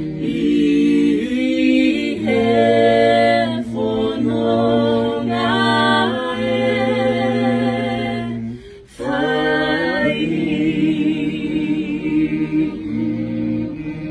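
A small group of voices singing a Tongan hymn unaccompanied, in harmony, with long held notes and a brief break for breath about two-thirds of the way through.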